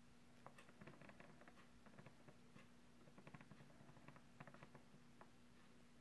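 Near silence: faint, irregular light clicks and ticks, some in quick clusters, over a steady low hum, from the small motorized display turntable slowly rotating the model.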